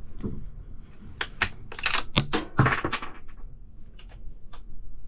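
A quick run of sharp metallic clicks and clinks, one ringing briefly, then a few faint ticks: small hard objects being handled or knocking together.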